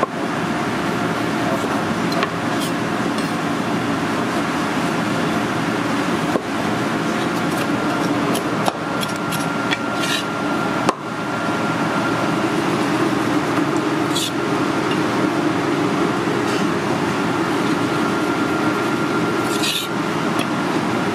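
Cleaver knocking and scraping now and then on a wooden cutting board as shellfish meat is cut, over a steady, loud kitchen hum.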